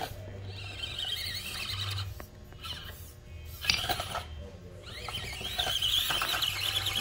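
Micro-scale RC rock crawler's small electric motor and gears whining as it climbs a rock slab, the pitch wavering with the throttle, easing off near the middle and building again near the end. A single sharp knock a little past halfway.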